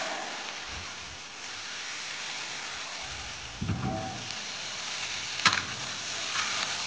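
Food stir-frying in a large wok, with a steady sizzle throughout and a sharp click from the utensils about five and a half seconds in.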